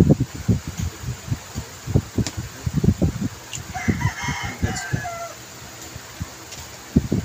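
Repeated soft knocks and rubs from hands handling a speed cube and small packaging close to the microphone. A rooster crows in the background about halfway through, one call of about a second and a half that falls at the end.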